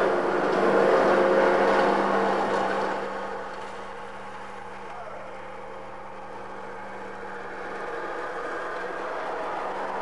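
Background room noise without speech: a steady low hum under an even rushing noise that is louder for the first three seconds, then fades to a quieter level.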